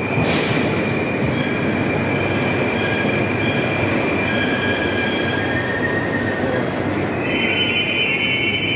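81-765.2 'Moskva 2018' metro train pulling into the station, a steady rumble of wheels with high whining tones over it. A stronger, higher whine sets in about seven seconds in as the train draws to a stop.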